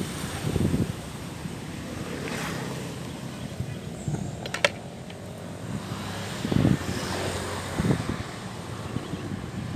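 Wind buffeting a phone microphone over a steady low rumble, with a few brief low gusts and one sharp click about halfway through.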